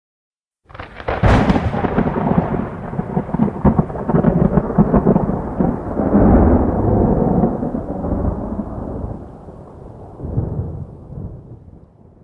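Thunder: a sharp crack of close lightning about a second in, then a long rolling rumble with crackles that swells once more near the end and dies away.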